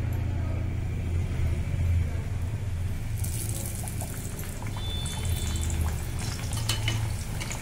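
Bhatura dough deep-frying in hot oil: a sizzling hiss starts about three seconds in as the dough goes into the oil and carries on, with crackles and a few light clicks of a slotted spoon near the end. A steady low hum underlies it throughout.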